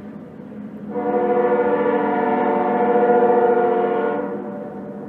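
Train horn sounding one long, steady chord blast lasting about three seconds, starting about a second in, over a steady low hum.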